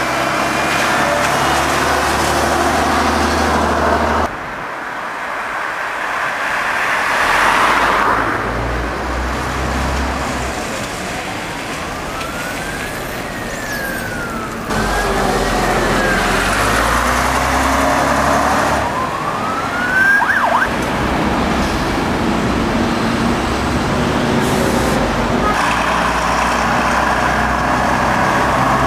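Diesel double-decker buses running and pulling away in city traffic, in several short takes. In the middle a siren wails, rising and falling a few times.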